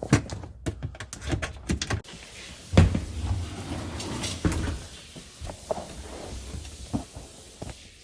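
Clicks and knocks of a screwdriver and hands working the side mounting clips of a dishwasher under a kitchen counter. A heavy thump comes about three seconds in, followed by a low rumble for a second or so, then a few lighter knocks.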